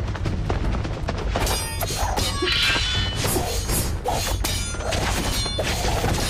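Fight-scene sound effects of sword sparring: a quick run of hits, swishes and metal clashes with short ringing tails, coming thicker after about a second and a half, over a low dramatic music score.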